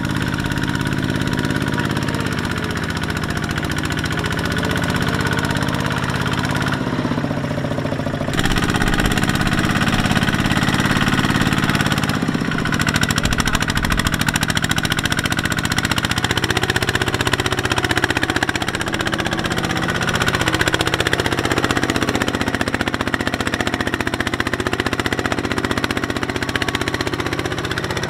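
Single-cylinder diesel engine of a two-wheel walking tractor running under load as it pulls a trailer of rice sacks through deep mud, its speed rising and falling as it labours. The sound changes abruptly a few times as the shots change.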